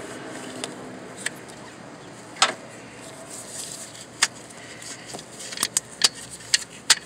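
Sharp metal clicks and clinks of a socket being fitted onto the output-terminal nut of a Honda Accord alternator while testing its size: a few single clicks, then quicker clinking near the end.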